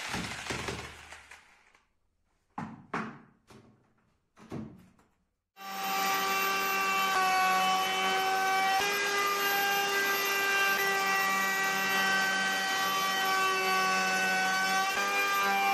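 Jigsaw cutting wood, dying away in the first second or so, followed by a few short scraping strokes. About five and a half seconds in, a steady hum with several held tones starts abruptly and runs on.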